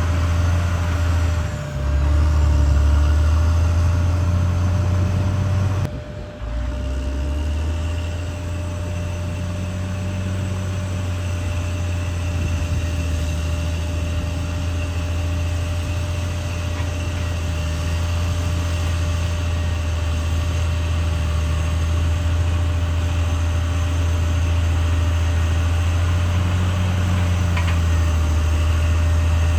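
Caterpillar D6R XL bulldozer's diesel engine running steadily under work, a deep continuous drone, with a brief dip in level about six seconds in.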